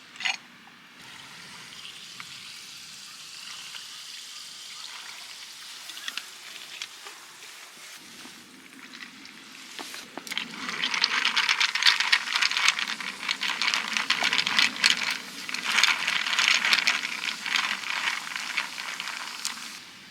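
Food sizzling and crackling in a hot pan, turning loud about halfway through. Before that, a quieter pour of liquid into a container, rising in pitch as it fills.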